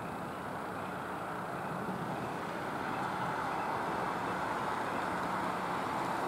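Steady rushing noise of distant road traffic, swelling a little about halfway through.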